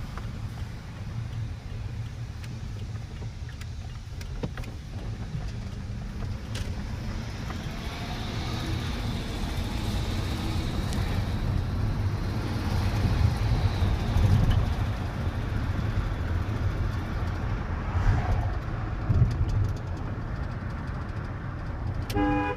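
Pickup truck engine and road noise heard inside the cab while driving, growing louder in the middle as the truck picks up speed. In the last moment a car horn starts to honk: the horn has been wired to the left turn signal, so it sounds when the blinker is switched on.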